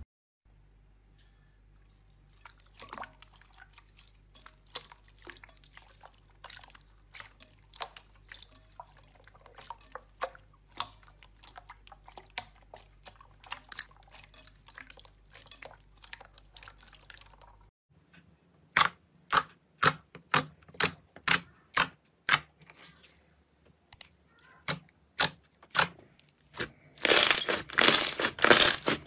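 Hands squishing and kneading slime: faint sticky clicks and wet pops at first, then a run of sharp pops about twice a second, and near the end a dense, loud crackling as a glossy green slime is squeezed.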